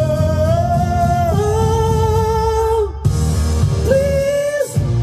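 A woman singing long held notes over a pop-rock backing track with guitar: one note sliding slightly upward, then a lower held note, a short break about three seconds in, and a shorter note near the end.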